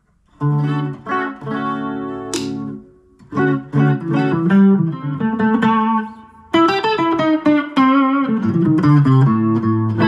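Grote semi-hollow electric guitar played through a Line 6 Helix on a jazz chorus amp sound, heard through a battery-powered Mackie Thump Go speaker: held chords, then a brief pause about three seconds in, then chords and short runs of notes.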